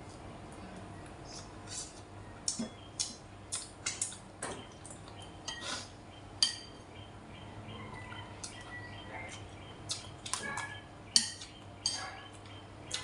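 Chopsticks and a spoon clinking and scraping against a ceramic rice bowl in irregular sharp taps, the loudest about six and a half and eleven seconds in, over a steady low hum.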